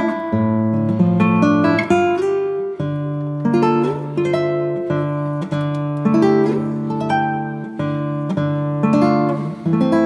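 Background music: acoustic guitar played in plucked and strummed chords, with a steady, even rhythm.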